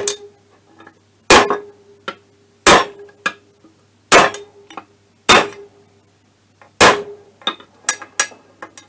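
Hammer striking a steel socket extension bar set against an MBK Spirit scooter's aluminium crankcase: six hard metallic clangs about every second and a half, each ringing briefly, then a few lighter taps near the end. The blows free a crankshaft that stuck when the crankcase halves were tightened without the case being heated enough.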